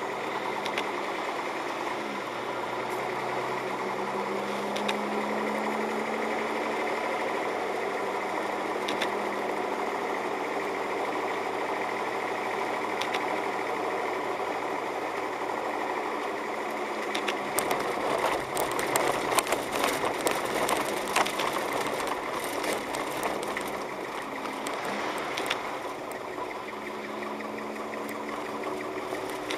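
A car's engine and tyres heard from inside the cabin while driving on a snow-covered road. From a little past halfway the tyre noise turns rough and crackly, with many short clicks, then settles again near the end.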